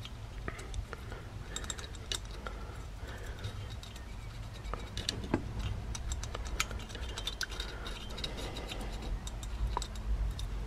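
A small brush scrubbing around inside the metal float chamber of a Zenith carburettor, wet with carburettor cleaner, stirring up the muck in its base: irregular light clicks and scrapes as the brush knocks against the bowl and jets.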